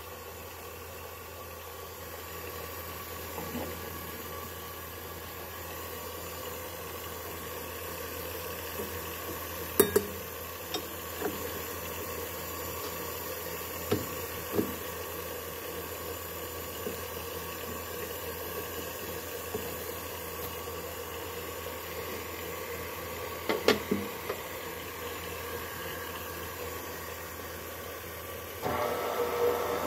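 KitchenAid stand mixer's electric motor running with a steady hum, with a few short, sharp knocks; near the end it becomes noticeably louder.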